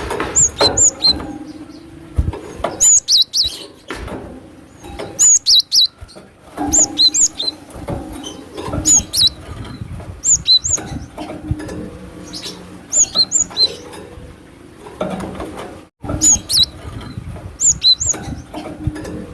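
Cinereous tit (gelatik batu) singing: short, high phrases of two or three sharp notes, repeated about every 1.5 to 2 seconds, over a steady low hum.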